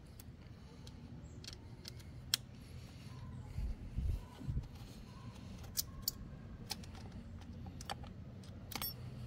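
Scattered light clicks and taps of hand work on an electric dirt bike's frame and its plastic covers, with a few soft low thumps about three and a half to four and a half seconds in.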